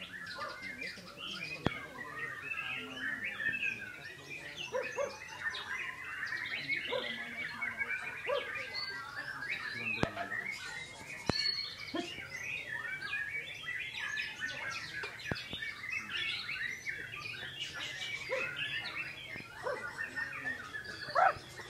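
White-rumped shama singing a continuous, rapidly varied song of chirps, whistles and warbled phrases, with an occasional sharp click.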